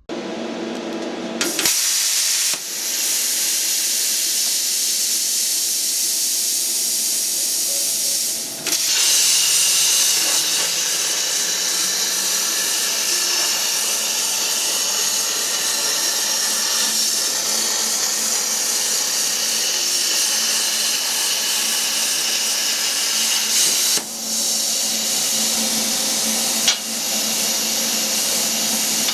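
A cutting torch cutting a piece of 8 mm steel plate, giving a loud, steady hiss with brief breaks about 2½, 9, 24 and 27 seconds in.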